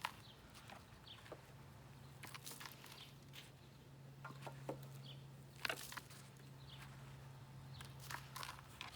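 Faint, scattered scrapes and rustles of soil being handled in flower pots, with a few sharper knocks about half a second apart near the middle. A low steady hum runs under most of it.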